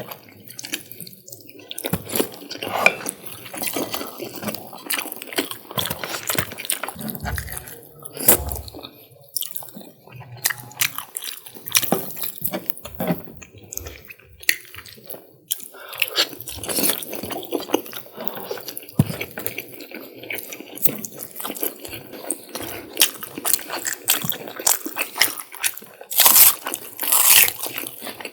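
Close-miked wet chewing and smacking of spicy chicken curry, egg curry and vegetable pulao, with irregular bites and sticky mouth clicks. The loudest bites come near the end.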